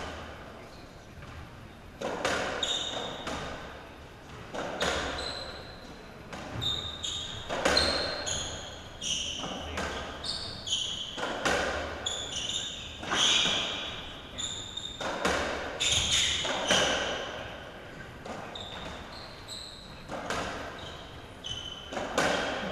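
Racketball rally: the ball smacks off rackets and the court walls every second or so, each hit echoing round the court. Between the hits come short, sharp squeaks of players' shoes on the court floor.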